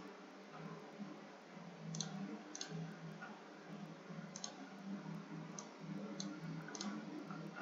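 Computer mouse button clicking, about six separate sharp clicks spread across a few seconds, over a steady low hum.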